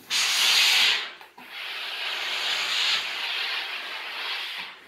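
Steam iron hissing as it lets out steam onto a T-shirt sleeve: a short loud burst of about a second, then after a brief break a longer hiss of about three seconds that fades near the end.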